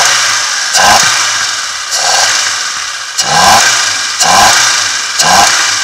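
Citroën Saxo petrol engine with an open cone air filter, lubricated with washing-up liquid instead of oil, blipped by hand at the throttle: five quick revs about a second apart, each rising and then falling back toward idle.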